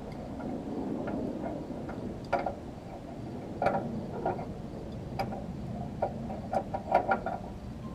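Scattered sharp metal clicks and clinks of hand tools working on a corn header's chain sprocket, irregular and closer together near the end, over a steady low background noise.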